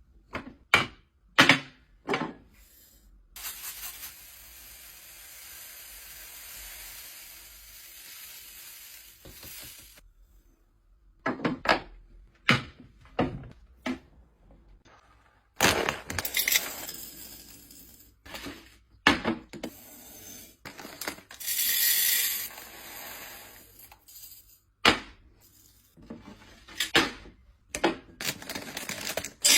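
Hard household items knocking and clinking as they are handled and set down, in a series of sharp separate clacks, with a stretch of steady hissing for several seconds early on and another louder rush of noise a little past the middle.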